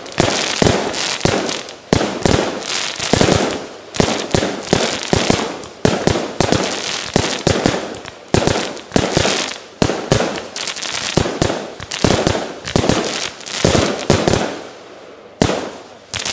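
Fireworks going off in rapid succession: a string of sharp bangs, about two a second, dying down near the end.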